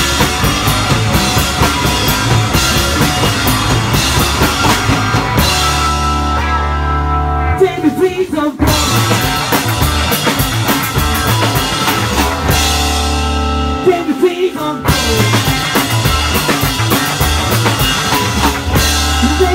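Live rock band of electric guitar, electric bass and drum kit playing a driving instrumental intro. Twice the band holds a long chord, then cuts out for a moment before the drums and riff come back in.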